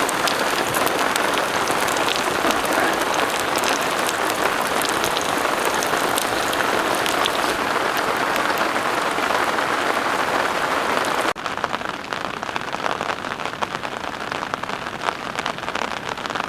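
Steady hiss with fine crackles from pieces frying in a pan of hot oil, mixed with rain falling around the camp. About eleven seconds in it cuts off abruptly to a quieter hiss.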